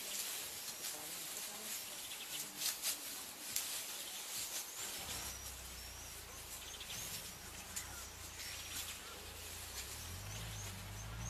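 Bush ambience: short, repeated high bird chirps and a few faint clicks over a low hiss, with a low steady rumble coming in about halfway through.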